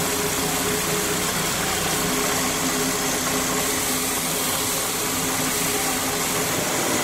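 Lathe running steadily with a constant hum, along with the even hiss of cloth pressed against the spinning metal pot as it is polished.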